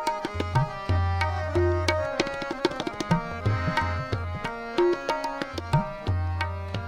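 Instrumental interlude of Sikh kirtan on tabla and harmonium: quick tabla strokes over steady held harmonium notes, with deep, ringing bayan bass strokes that swell and bend in pitch.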